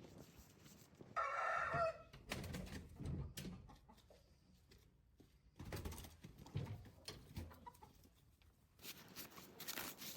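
A chicken calls once, a short, loud squawk lasting under a second about a second in, followed by scattered low knocks and rustling.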